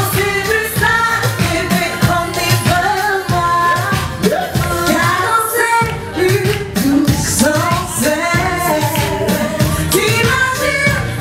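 Live zouk music: a woman sings into a microphone over a band or backing track with a steady beat, amplified through the venue's sound system.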